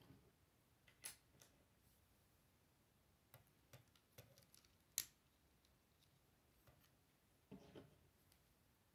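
Faint, sparse clicks of plastic Lego bricks being handled and pressed together, the sharpest about five seconds in, with a softer rustle of handling a little before the end.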